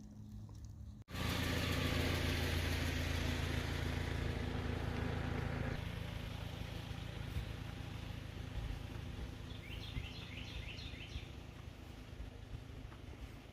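An engine running steadily at an even speed, louder for the first few seconds and then somewhat weaker. A bird gives a quick series of chirps near the end.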